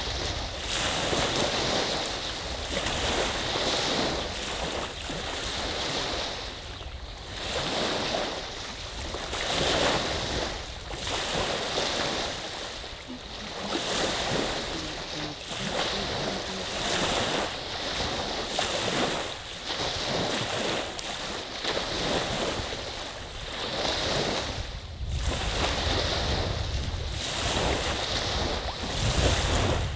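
Small lake waves on Saginaw Bay washing onto the beach, the surf swelling and fading every couple of seconds, with wind buffeting the microphone near the end.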